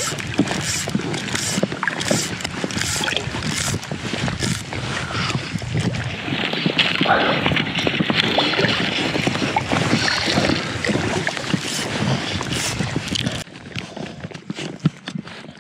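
Choppy water slapping and splashing around a float tube, with wind rushing on the microphone. The sound drops noticeably quieter near the end.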